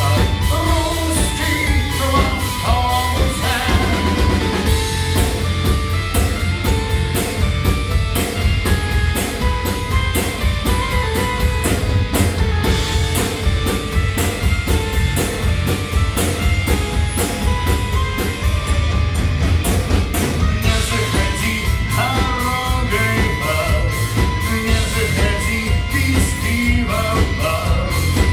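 Live rock band playing: a driving drum kit, bass and electric guitar, with a melody on a mallet-struck metallophone and singing at times.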